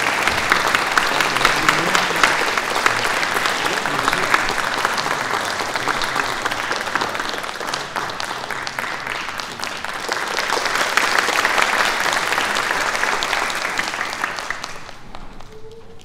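Audience applauding with dense clapping, swelling again about two-thirds through and then dying away near the end.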